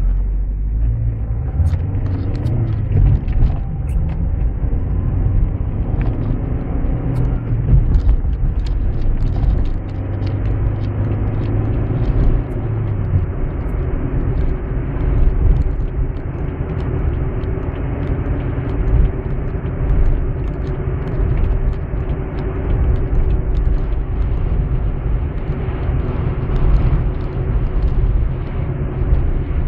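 Car engine and tyre rumble heard from inside the cabin, pulling away and speeding up over the first dozen seconds, then cruising steadily on wet asphalt. Faint scattered ticks sound throughout.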